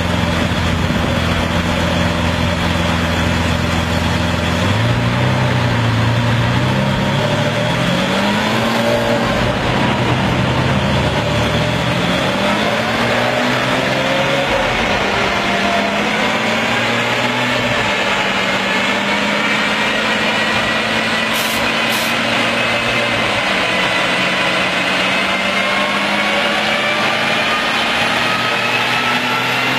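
Lamborghini Aventador's V12 running under load on a chassis dynamometer, with the dyno rollers spinning beneath it. From a low idle its revs climb and drop back a few times, as if through gear changes. It then holds a steadier speed with the pitch slowly rising, and starts climbing again near the end.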